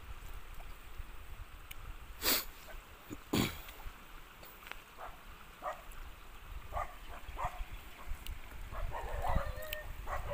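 Low wind rumble on the microphone, with two sharp noises a second apart about two seconds in and a few lighter clicks after. Faint, wavering animal calls come in near the end.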